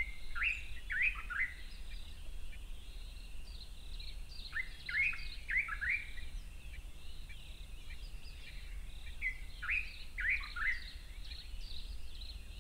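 Dark-capped bulbul singing: short phrases of three or four quick, falling whistled notes, about every four to five seconds, with fainter calls of other birds behind.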